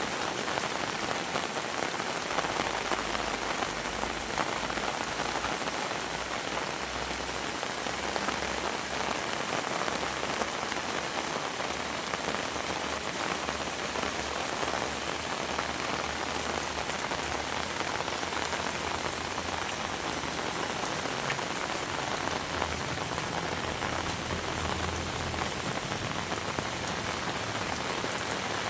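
Heavy rain falling steadily, an even hiss of drops on surfaces with no thunder.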